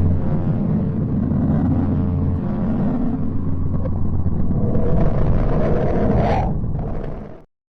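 Space sonification: radio or plasma waves recorded by a spacecraft and turned into sound, heard as a deep, rumbling drone with a steady low hum. About six seconds in a whistling tone rises in pitch, and the sound cuts off suddenly shortly before the end.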